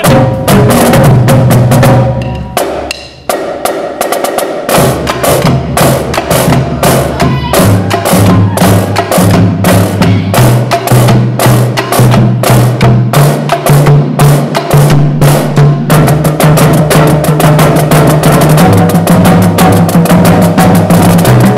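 Marching drum line playing: snare drums, tenor drums and a row of five tuned Pearl marching bass drums, in fast rhythmic strikes. The playing drops quieter for a moment about two to three seconds in, then builds back, and the bass drums' low notes step between pitches.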